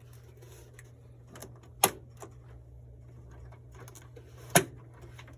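Two sharp clicks nearly three seconds apart, with a few fainter taps, from computer parts being handled, over a low steady hum.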